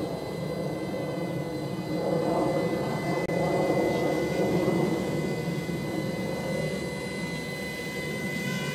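Ladybird mini quadcopter's small electric motors and propellers whirring steadily in flight, with a thin high whine and a new, lower whine entering near the end as the throttle changes.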